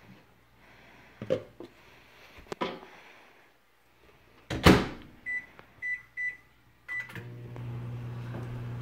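Microwave oven door shut with a loud thump, then four short keypad beeps as the time is entered, and the microwave starts running with a steady low hum near the end.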